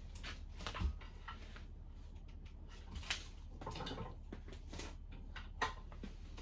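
Handling noises of someone fetching and sorting out an extension cord: scattered clicks and knocks with a brief rustle, three sharper knocks standing out about one, three and five and a half seconds in.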